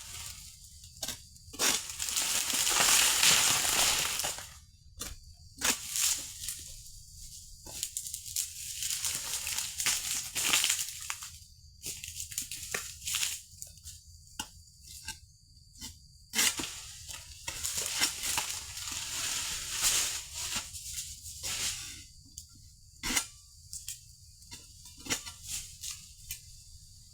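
Oil palm fronds being cut with an egrek, a pole-mounted sickle: repeated crunching, tearing strokes and sharp cracks, with a couple of longer tearing passes lasting a few seconds.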